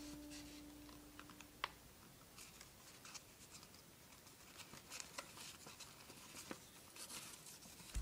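Faint crinkling and rustling of a sheet of plain printer paper being folded by hand, with a few small clicks as flaps are pulled and creased. A held background music note stops about a second and a half in.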